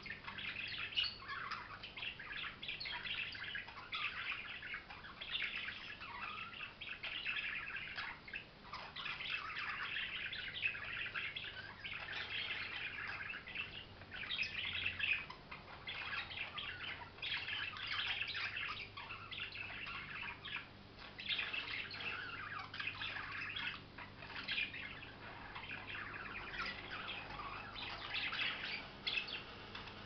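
Several budgerigars chattering: a continuous warble of quick, overlapping chirps.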